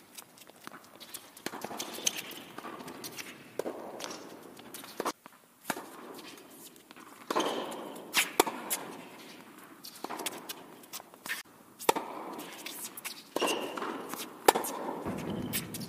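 Tennis rally on an indoor hard court: sharp pops of the ball off racket strings and court, at irregular intervals, among footsteps and shoe scuffs.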